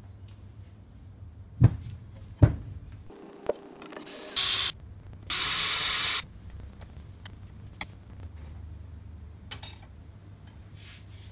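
Two knocks, then a cordless drill with a small bit drilling out the pop rivets that hold a brass badge on a steel mower deck, in two short bursts of about a second each. Light clicks and scrapes follow.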